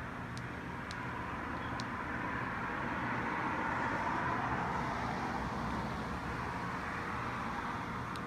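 A vehicle passing by, its tyre and engine noise swelling to a peak about four seconds in and then fading away, with a few faint ticks in the first two seconds.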